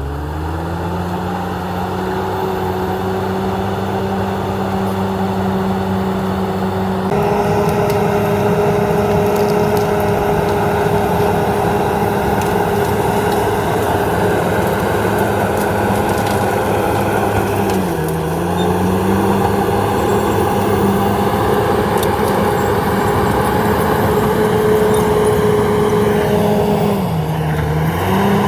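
Komatsu D68ESS bulldozer's diesel engine running steadily. It gets louder about a quarter of the way in, and its pitch dips briefly twice, once near the middle and once near the end, before picking back up.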